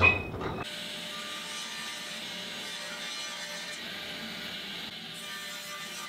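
Table saw with its blade tilted to about 30 degrees, shaving a shallow chamfer along the edge of a wooden frame board: a steady whir of the blade cutting, after a brief louder sound at the very start.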